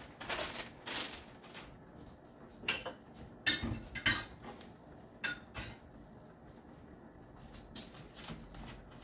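A metal cooking utensil knocking and clinking against cookware several times at irregular intervals, the loudest knocks near the middle.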